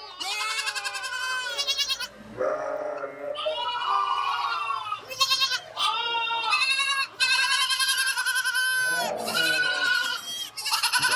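Goats bleating over and over, a run of about eight quavering bleats with hardly a gap between them.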